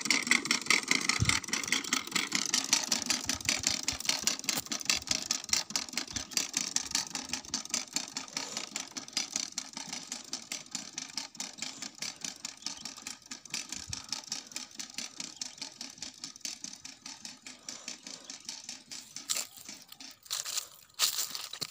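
Push-type manual corn planter (wheeled jab seeder) rattling and clicking rapidly and evenly as its wheel turns and meters seed while pushed over tilled soil, fading steadily as it moves away.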